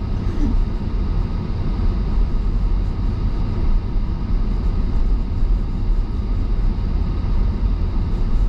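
Road noise inside a moving car's cabin: a steady low rumble of tyres and engine while driving on a snow-covered road.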